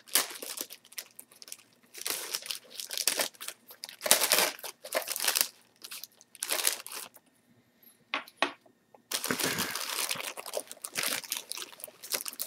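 Clear cellophane bag wrapped around plastic model-kit sprues crinkling as hands grip and pull it open, in irregular crackly bursts, with a quieter pause of about two seconds past the middle.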